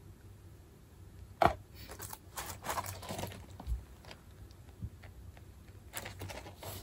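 Handling and opening a cardboard perfume box: a sharp click about a second and a half in, then light rustling and tapping of the packaging, with a soft thump near the middle.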